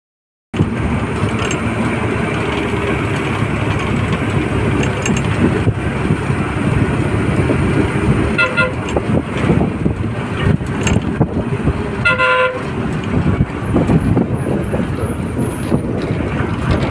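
Steady engine and road noise of a vehicle driving along a winding road. A horn toots twice: briefly about eight seconds in, and for about half a second around twelve seconds in.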